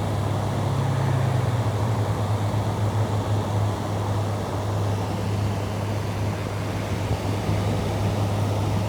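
Window air conditioner running: a steady low hum under an even rush of air from the fan.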